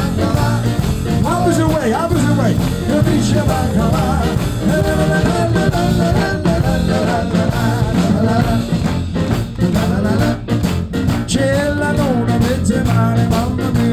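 Live band and singer performing an upbeat traditional Italian song, with a steady bass beat under the sung melody.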